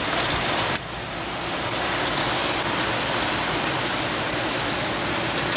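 Heavy rain and wind of a tropical storm: a steady rushing noise that dips briefly just under a second in.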